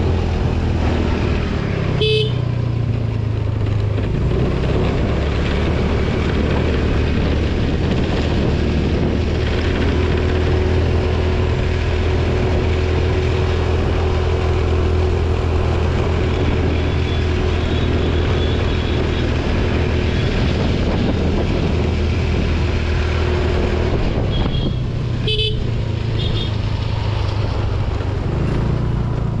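TVS Jupiter scooter on the move: a steady engine hum under road and wind noise. A short horn beep sounds about two seconds in and again near the end.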